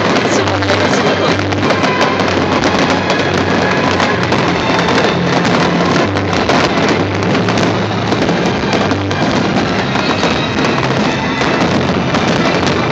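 Fireworks display going off in a dense, continuous barrage of crackling and popping bursts, with music playing along underneath in steady low notes.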